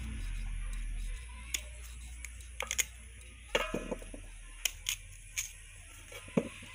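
Knife cutting raw potato into chunks over a steel tray: irregular sharp clicks and clinks as the blade cuts and pieces drop onto the metal, a few of them ringing briefly. Background music plays underneath.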